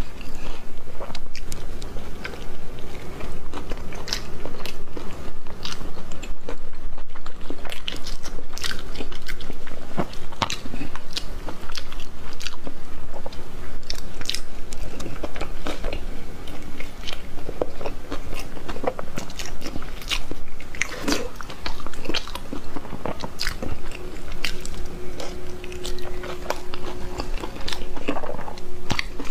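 A person eating close to the microphone: repeated biting and chewing, with wet mouth clicks and crunches coming in quick, irregular succession.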